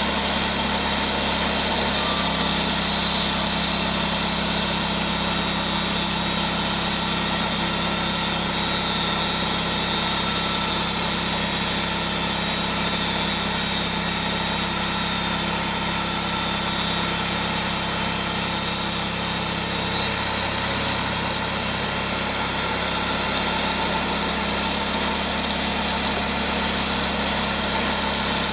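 Portable band sawmill's engine running steadily at a constant speed.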